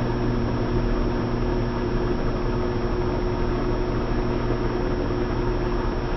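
Atlas washing machine spinning: a steady motor hum under an even whirring rush, holding one pitch and level throughout.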